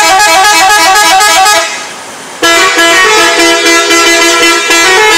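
Indonesian bus telolet horns, multi-tone musical air horns: a quick run of alternating notes for about a second and a half, then after a short pause a longer loud blast of several notes sounding together and stepping in pitch.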